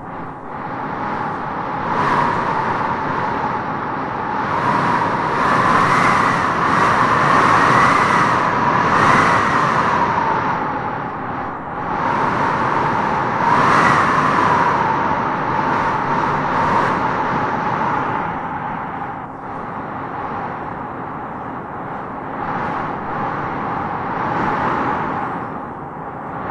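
Wind blowing in gusts, with a moaning howl that swells and rises in pitch as the gusts strengthen, strongest about a quarter of the way in and again about halfway, then easing off.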